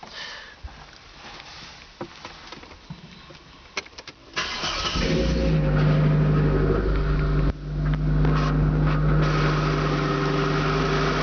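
Opel GT's fuel-injected 2.4-litre CIH four-cylinder engine starting about four seconds in, after a few faint clicks, then running steadily at idle. The level dips briefly once, a few seconds after it catches.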